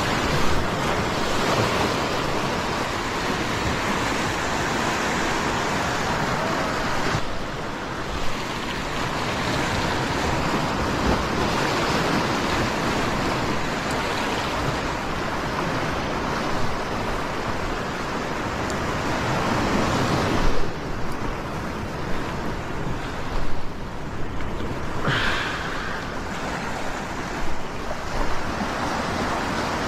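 Sea surf washing against rocks close by: a loud, continuous rush of breaking water that swells and eases.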